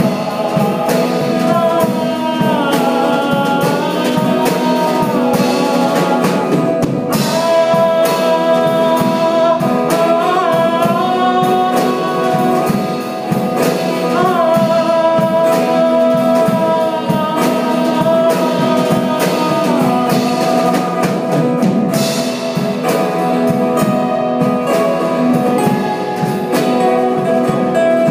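Pop ballad music: a sung melody with long gliding notes over a band accompaniment with drums.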